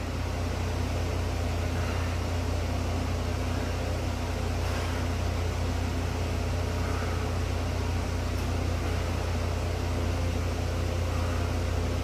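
A steady low hum that does not change in level or pitch.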